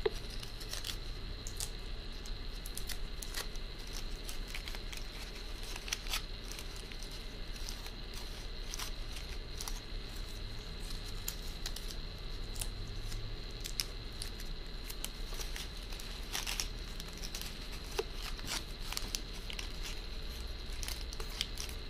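Folded magazine-paper pieces rustling and crinkling in scattered short crackles as hands handle them and press them into a paper gift bow, with small clicks among them. A faint steady high whine runs underneath.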